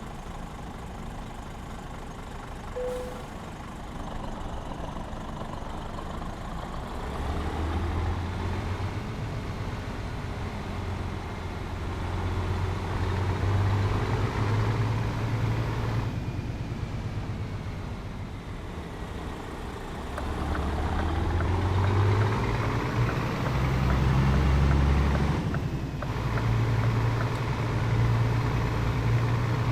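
Scania 500S truck engine running through a straight-piped exhaust. Its revs climb and fall back twice, and it grows louder over the stretch.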